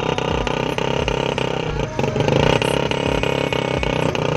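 A Royal Enfield Bullet and two small commuter motorcycles, a Hero Passion Pro and an HF Deluxe, running under load as they pull against each other on a tow rope. The engine sound stays steady, with a brief dip about two seconds in.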